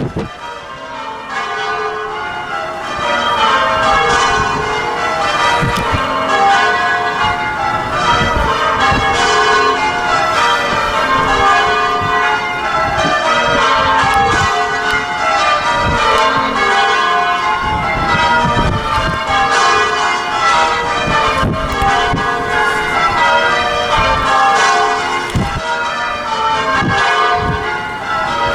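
Church bells being change rung: a continuous stream of strokes falling down through the ring in repeating cascades. The ringing builds over the first few seconds.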